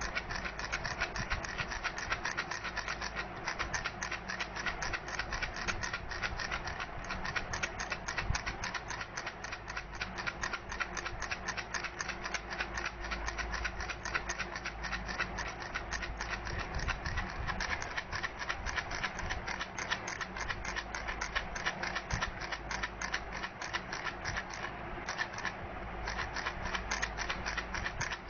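Baby rattle being shaken without pause, giving a fast, even stream of small clicks.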